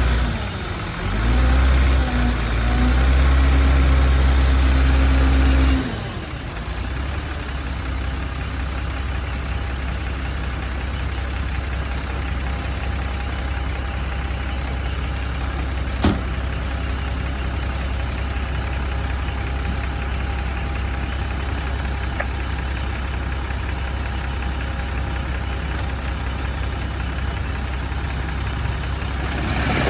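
Heavy earthmoving machine's diesel engine revving hard for about six seconds, then dropping back to a steady idle. A single sharp click about sixteen seconds in.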